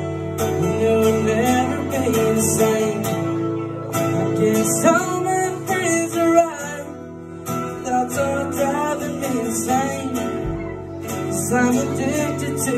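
Acoustic guitar strummed steadily, with a man singing over it in phrases.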